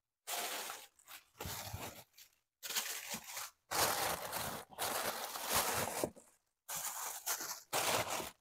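Thin plastic bags rustling and crinkling in several separate bursts as they are handled and pushed into a refrigerator, with brief silent gaps between the bursts.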